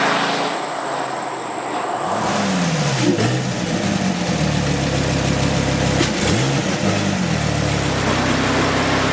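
2013 SRT Viper's V10 engine revving through the gears: a steady drone at first, then the pitch drops and climbs again, with a quick dip and recovery about six seconds in, like a gear change under acceleration.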